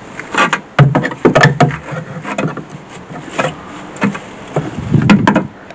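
Screwdriver scraping and prying inside a rusted steel rocker panel: a run of irregular sharp scrapes and knocks as rust, body filler and a wad of paper stuffed into the rust hole are dug out. A low hum sounds underneath from about a second in.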